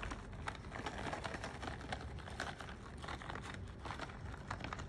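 Chopped pecans shaken from a bag, the pieces pattering onto sugar-coated bread slices with some crinkling of the bag: a faint run of irregular light ticks.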